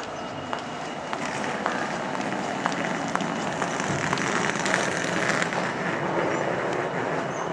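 Class 66 diesel locomotive, with an EMD two-stroke V12, running slowly past, its wheels clicking irregularly over rail joints and pointwork. It grows louder about four seconds in as it draws level.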